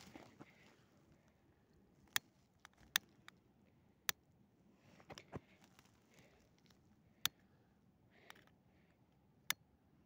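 Piezo igniter of a long-nosed utility lighter clicking as it is held to a firecracker's fuse: five loud, sharp clicks spread a second or more apart, with a few fainter clicks and light rustling between them. The repeated clicking is the sign of the firecracker not catching yet.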